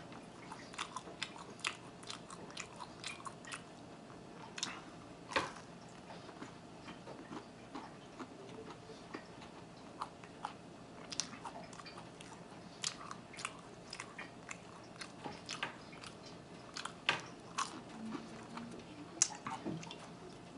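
Close-miked chewing of garlic cheese bread: quiet, irregular mouth clicks and smacks with no steady rhythm.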